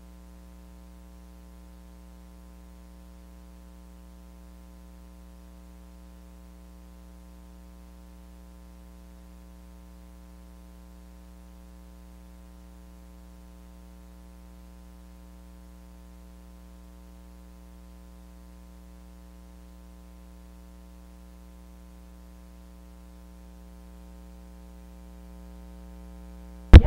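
Steady electrical hum and buzz, a set of unchanging tones with nothing else over it, cut off at the very end by a sudden loud click as full sound comes back in.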